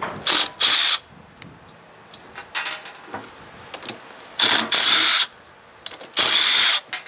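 Cordless impact driver run in about four short bursts, each a second or less, undoing the bolts that hold a truck alternator's rear cover. Its motor whine rises in pitch within each of the longer bursts.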